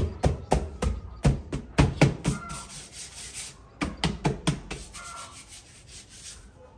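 Hands rubbing and scraping across the dry, cement-textured surface of a painted canvas board: a quick run of short strokes, then a brief second flurry about four seconds in.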